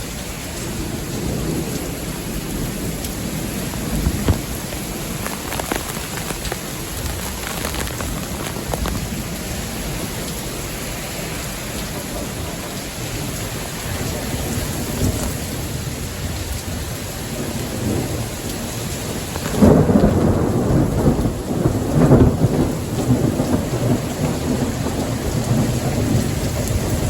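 Heavy rain falling steadily in a thunderstorm, with thunder rumbling; the loudest rumble comes about two-thirds of the way in and lasts a few seconds.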